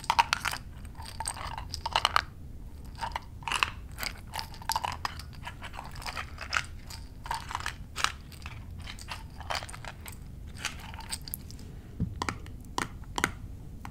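Close-miked ASMR tapping and handling sounds: irregular sharp taps and crunchy clicks, a few every second, such as fingernails on small mini bar bottles and their packaging.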